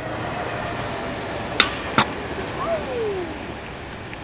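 Freestyle stunt scooter's wheels rolling on rough asphalt, then two sharp clacks less than half a second apart, about a second and a half in, as the scooter strikes the rail and comes down in a failed trick attempt. A short falling tone follows.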